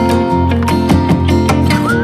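Background music: strummed acoustic guitar with a steady rhythm, and a high sustained melody line above it.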